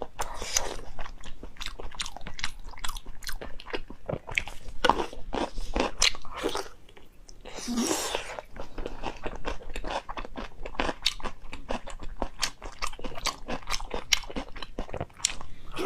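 A person eating close to the microphone: biting and chewing food with many quick, sharp crunches.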